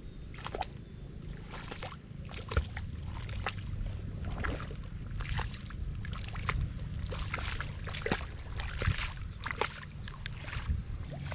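Feet splashing and sloshing through the shallow water and mud of a flooded rice paddy while a wooden leveling board is dragged through it on a rope, an irregular splash about once a second.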